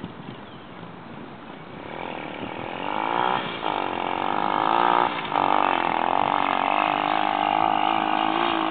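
125 cc dirt bike engine revving hard and getting louder from about two seconds in. The revs dip briefly twice and climb again, then hold high.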